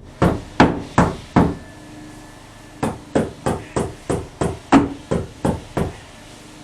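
Hammer blows: four quick strikes, a pause, then a run of about nine more at roughly three a second, each with a short ring.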